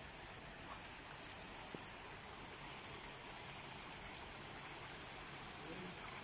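Water trickling and splashing over stones in a small falaj-style garden channel, a steady faint hiss, with a single small click about two seconds in.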